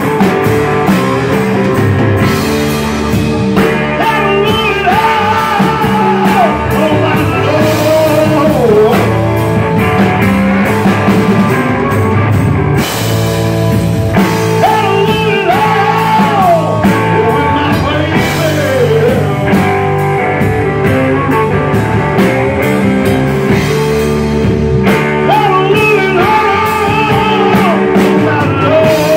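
Live blues-rock band playing loud: electric guitar, bass guitar and drum kit, with a lead melody line that bends up and down in pitch in phrases recurring every few seconds.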